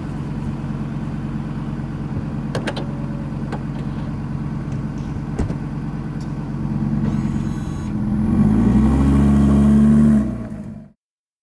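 A car engine running steadily, then revving up with a rising pitch and getting louder near the end before the sound cuts off suddenly. A couple of sharp clicks are heard early on the steady part.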